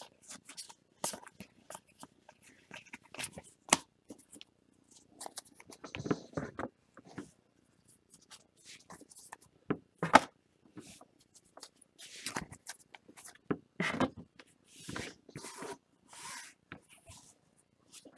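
2019 Topps Series 2 baseball trading cards being handled and flipped through: scattered short clicks, taps and swishes of card stock, coming irregularly with a few louder snaps.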